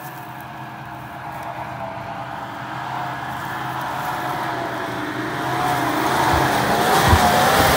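Land Rover Discovery's engine running under load as it crawls along a muddy, rutted track, its pitch wavering with the throttle and growing steadily louder as it comes closer. There are a couple of short low thumps near the end.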